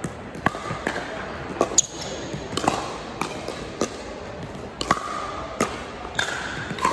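Pickleball rally: paddles striking the hollow plastic ball and the ball bouncing on the hardwood court, a string of sharp pops about every half second, echoing in a large gym. Short sneaker squeaks on the hardwood come in near the end.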